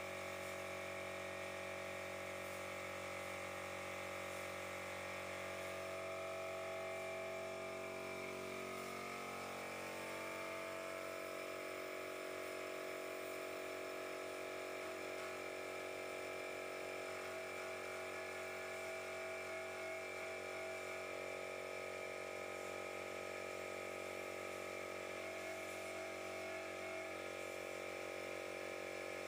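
Air compressor running steadily to feed a paint spray gun: a constant hum with a high whine that does not change pitch.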